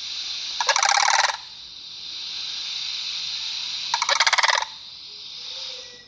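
Crane calling: two loud, rolling, rattling calls, one about a second in and one about four seconds in, each under a second long, over a steady high-pitched hiss.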